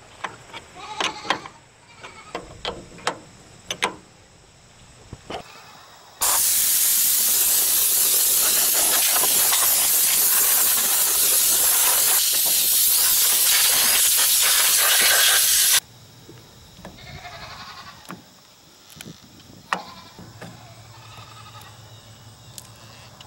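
Compressed-air blow gun blasting chaff and dust out of a hay baler's knotter: a loud steady hiss lasting about nine and a half seconds, starting about six seconds in. Before it, light metallic clicks of a wrench on the knotter.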